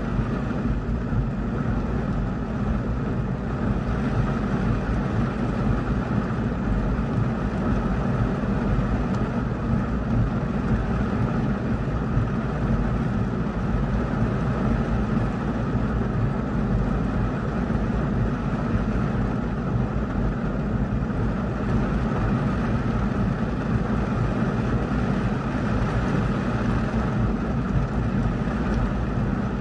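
Heavy rain pounding on a car's roof and windshield, heard from inside the cabin as a steady, dense noise that is heaviest low down.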